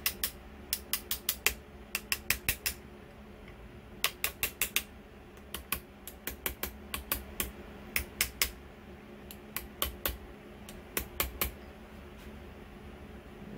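Light, quick hammer taps on a metal tube driver slid over an outboard's driveshaft, in runs of three to five taps with short pauses between them. The taps ease a lubricated metal part of a 2008 Yamaha F115's water pump kit down the shaft onto the pump housing.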